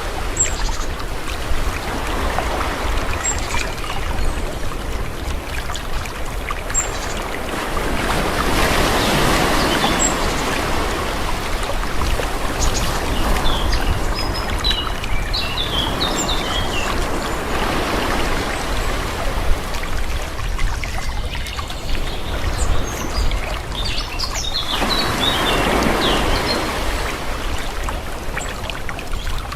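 Calm sea waves washing in slow swells, rising and falling every several seconds, with small birds chirping now and then.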